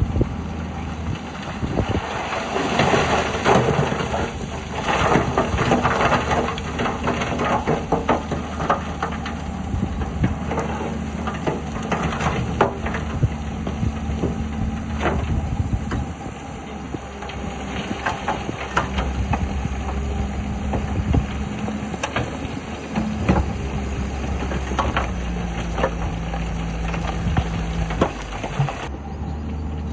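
Diesel engines of heavy earthmoving machines (a bulldozer and dump trucks) running steadily, with many sharp clanks and knocks of metal and rock as the earth and stone are worked.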